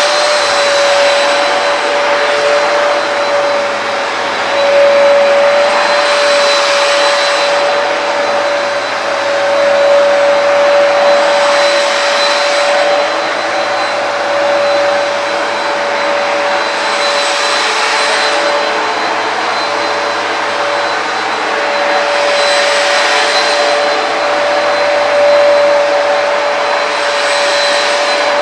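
Hoover PowerDash carpet cleaner running on a rinsing pass over a rug: a steady high motor whine over a suction hiss that swells every few seconds.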